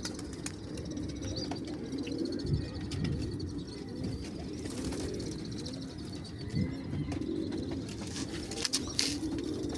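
Domestic pigeons cooing, a run of low, rolling coos one after another, with a few sharp clicks near the end.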